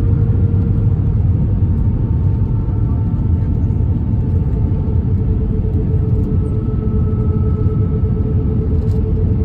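Airbus A321-232 airliner cabin noise beside the wing, on approach with flaps extended: the IAE V2500 engines and airflow make a steady low rumble with a faint steady whine over it.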